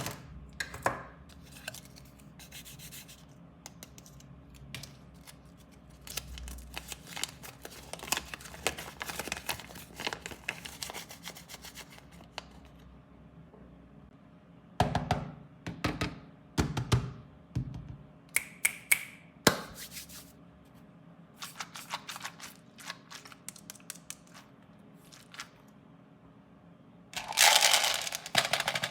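Close-up handling and opening of plastic sweet and toy packaging: wrappers crinkling and tearing, with scattered taps and clicks. A louder, denser crackle comes near the end.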